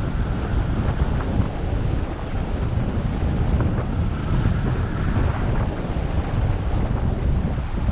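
Wind from the glider's airspeed buffeting the microphone of a wing-mounted camera on a hang glider in flight: a steady, gusty low rumble.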